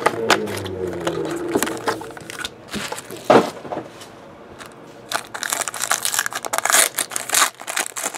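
Plastic and foil wrapper of a sealed trading-card pack being torn open and crumpled by hand: scattered crackles, a sharp snap about three seconds in, and dense crinkling from about five seconds.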